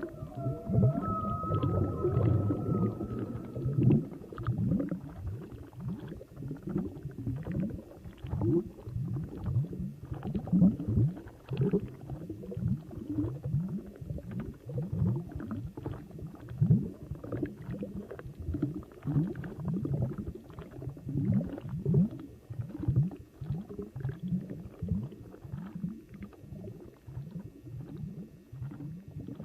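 Underwater ocean recording: a high, whale-like call fades out in the first few seconds, then a long run of short, low, falling grunts follows at about two or three a second.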